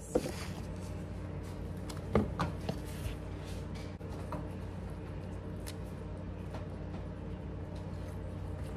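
Soft clicks and scrapes of a metal spoon and gloved hands filling halved jalapeño peppers with cream cheese, the clearest about two seconds in, over a steady low hum.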